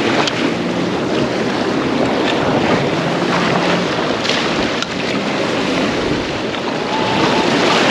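Strong wind rushing steadily over the microphone, with ocean waves washing below the pier.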